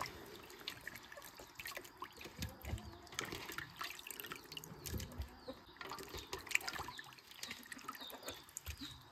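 Water trickling and dripping, with irregular small splashes and light knocks.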